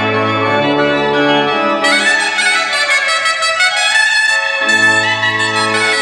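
Breton bombarde and J. Abbey pipe organ playing a gavotte pourlet together, the bombarde's bright, piercing reed carrying the tune over sustained organ chords. The bombarde comes back in about two seconds in, and the organ's bass notes drop out for a few seconds in the middle.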